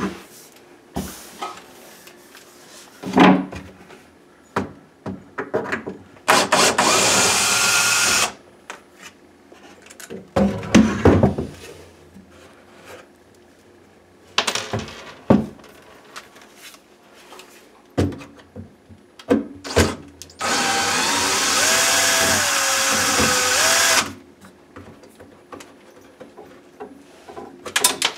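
A power drill backing out the screws that hold the countertop to the base cabinets, running twice: once for about two seconds, then for about three and a half seconds with its motor pitch dipping and rising. Short knocks and clicks of the screws and the tool against the cabinet come between the runs.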